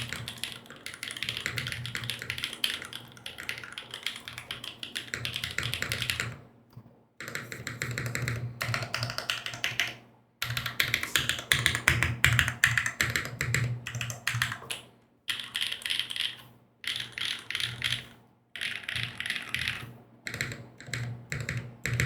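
Typing on a mechanical keyboard with Kailh BCP linear switches and GMK doubleshot ABS keycaps on a full aluminium plate. There is fast, continuous keystroking on the letter keys for about six seconds, then a short pause, then repeated presses of the modifier keys in separate bursts of a few seconds each.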